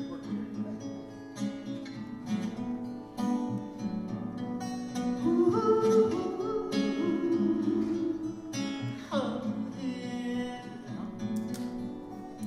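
A woman singing a slow song to her own acoustic guitar, the voice loudest in a long held line in the middle.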